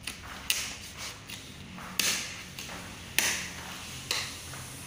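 A squeegee pressed and swept over vinyl wrap film on a car door: four short strokes about a second apart, each starting sharply and trailing off, over a faint low hum.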